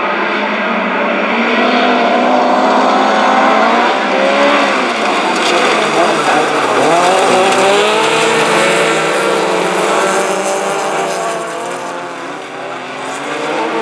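A pack of dirt-track race cars accelerating hard from a standing start, several engines revving together at once. Their pitches climb and drop as they run into and through the first corner, easing off slightly near the end.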